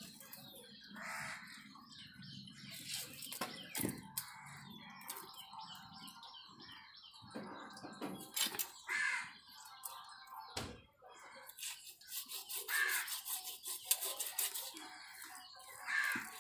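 Crows cawing now and then, over the scraping and cutting of a knife working the scaly skin off a large fish.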